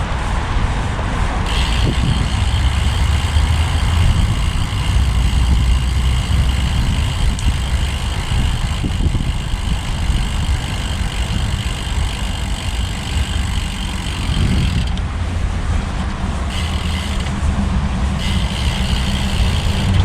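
Riding noise from a road bike: a heavy, steady rumble of wind on the microphone and rolling noise, with a steady high whine that comes in after a second or so, drops out near the end and returns in short stretches.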